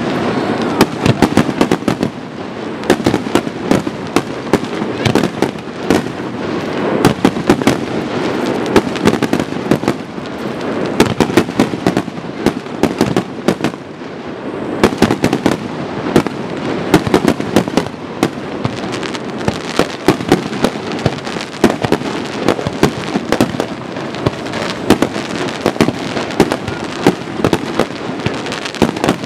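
Aerial fireworks display: shells and crackling effects bursting in rapid succession, a dense, unbroken barrage of bangs and crackles.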